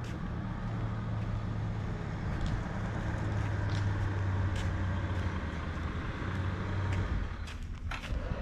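A motor vehicle's engine on the street: a steady low hum that grows louder through the middle and drops away about seven seconds in, with a few light ticks over it.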